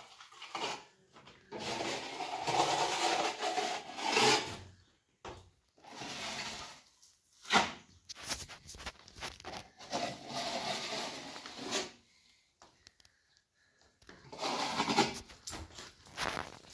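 A steel plastering trowel scraping wet plaster across a wall in long strokes with short pauses between them.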